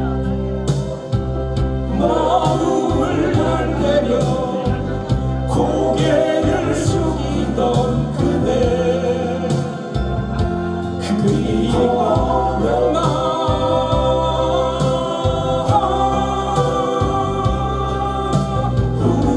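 A man singing a Korean ballad into a handheld microphone over a backing track with a steady bass beat. The singing comes in about two seconds in, after a short instrumental bar.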